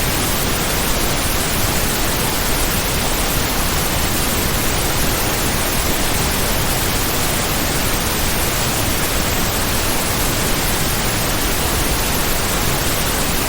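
Heavy rain falling as a dense, steady hiss, with no single drops or gusts standing out.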